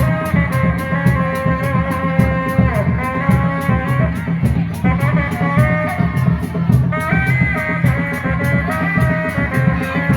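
Jaranan (kuda lumping) ensemble music: a melody of long held notes that bend in pitch, over a steady drum beat, with a high metallic tick about four times a second.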